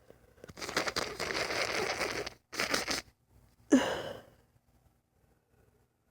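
A woman's sneezing fit: two rough, breathy bursts, the first about two seconds long, then a single sneeze a little after the middle.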